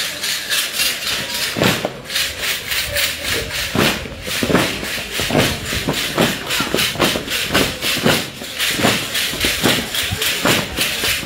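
Many sonajas, wooden rattle sticks strung with metal jingles, shaken and struck in unison by a troupe of dancers. They make a steady jangling beat of about three strokes a second.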